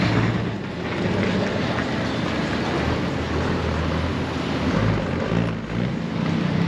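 City street traffic: a bus and cars passing close by, engines running with a steady low rumble.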